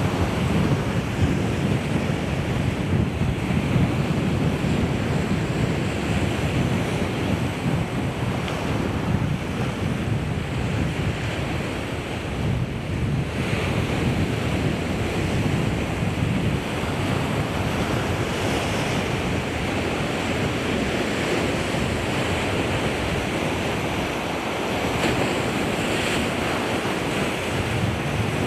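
Ocean surf washing steadily on the shore, with wind buffeting the microphone.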